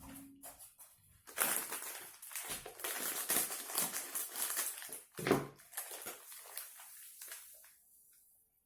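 Scissors cutting open a kilogram bag of sugar, and the bag rustling and crinkling as it is handled, in uneven bursts that die away near the end. There is one louder bump about five seconds in.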